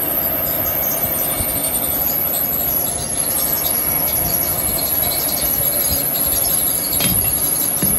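Metal lathe and machine-shop machinery running steadily, with a constant high-pitched whine over a steady hum. A brief knock about seven seconds in.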